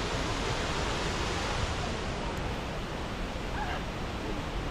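Steady rushing roar of a large waterfall.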